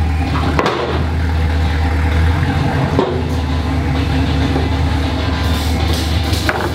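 Chevrolet Silverado pickup's engine idling steadily through long-tube headers and a newly fitted Carven exhaust, a deep, even exhaust note.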